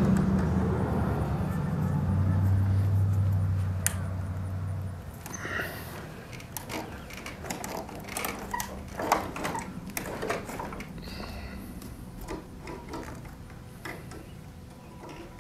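A low engine hum fades out about five seconds in. Scattered sharp metallic clicks and scrapes follow as the box truck's roll-up door cables and header are worked by hand.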